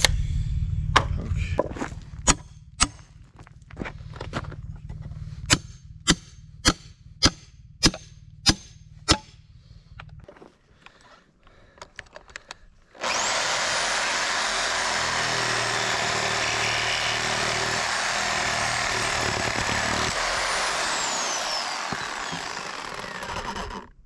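A series of sharp knocks, about one and a half a second, then a power saw cuts through a board for about eight seconds, its high motor whine falling away as the blade spins down near the end.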